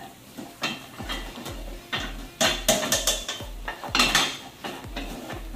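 A spoon scraping and clinking against a metal frying pan as wonton filling is stirred, a quick run of sharp knocks and scrapes that is busiest in the middle.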